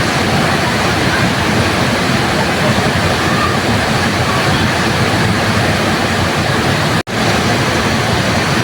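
Waterfall rushing in a loud, steady roar of falling water, cutting out for an instant about seven seconds in.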